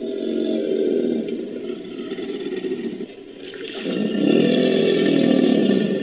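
Alligator sound effect built from crocodilian recordings: two long, low calls, the second starting nearly four seconds in and louder.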